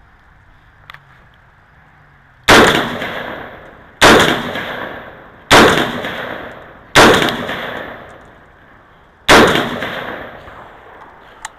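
Five rifle shots from a Bear Creek Arsenal AR-15, fired one at a time about a second and a half apart, with a slightly longer pause before the last. Each shot trails off in a fading echo.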